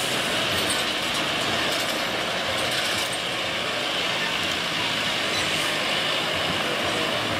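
Diesel engine of a John Deere utility tractor running steadily at low speed as it drives by slowly, along with a steady hiss.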